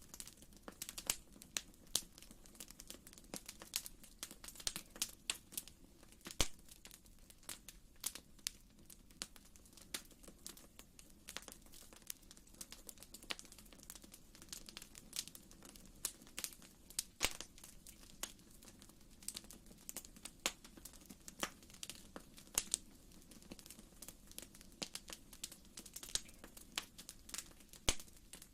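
Wood fire crackling in a fireplace: irregular sharp pops and snaps over a soft, steady low rumble of the flames.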